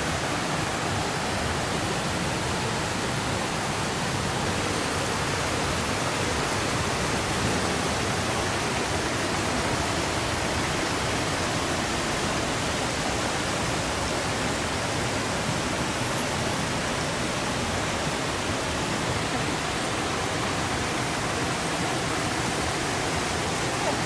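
Water of a rocky rainforest stream rushing steadily over boulders and small cascades, an even, unbroken rush.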